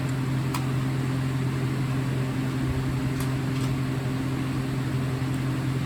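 A steady low hum, with a few faint clicks from plastic smoke alarms being handled.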